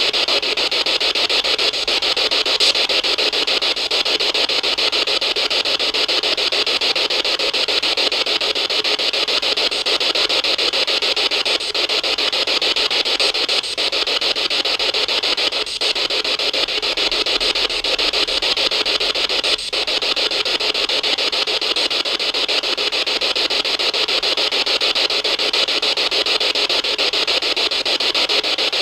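A steady, loud hiss of static with a fine rapid flutter to it, dipping briefly now and then.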